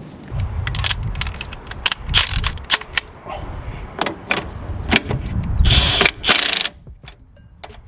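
Tools and metal wheel parts clanking and clicking during a mower wheel change, with a denser burst of noise lasting about a second near the end.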